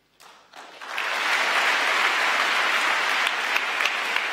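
Audience applauding: a few scattered claps swell within the first second into full, steady applause from a large hall crowd.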